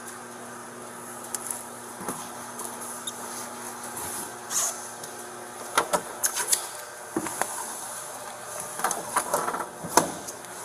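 Steady background hum with scattered clicks, knocks and rustling of people moving at an open patrol-car rear door, busiest about six seconds in and again near the end.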